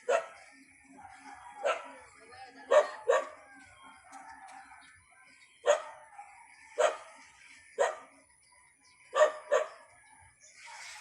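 A dog barking about nine times at uneven intervals, some barks in quick pairs, over a faint steady high tone. A rushing hiss starts near the end.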